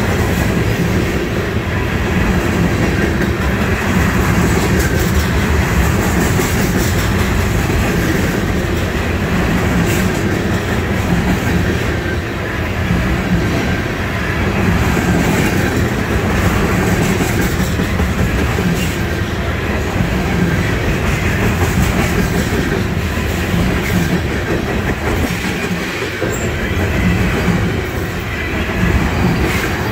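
Freight cars loaded with trash containers rolling past at close range: a steady rumble of steel wheels on rail, with repeated clicks and clacks as the wheels cross rail joints.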